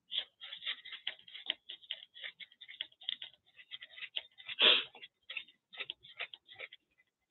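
Paintbrush scrubbing and dabbing acrylic paint over a paper collage: a quick, irregular run of short brush strokes, with one longer, louder stroke about halfway through.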